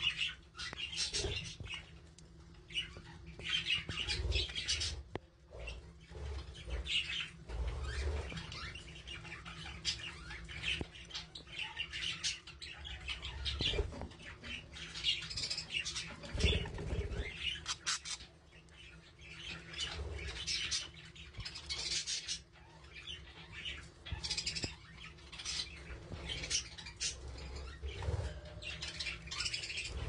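Budgerigars chirping and chattering in quick, repeated bursts of high notes, with a few dull low thumps among them.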